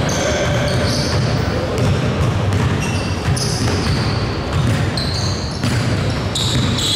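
Basketball bouncing on a gym floor, with players' voices in the background.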